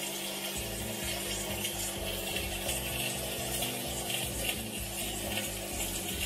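Kitchen knife slicing a block of kaşar cheese on a wooden cutting board, soft scraping strokes against the board, over background music with a low bass line that comes in about half a second in.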